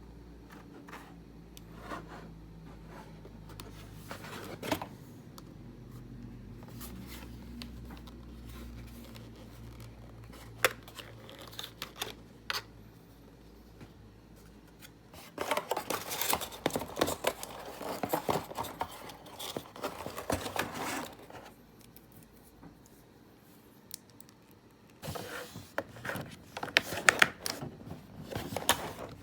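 Keyboard packaging being handled and opened: scattered clicks and taps, then two spells of crinkling and tearing, one about six seconds long around the middle and another near the end.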